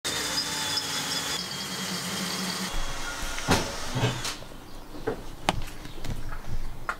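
A steady hiss-like noise for about the first two and a half seconds, then a handful of sharp knocks and clunks, like metal parts being handled.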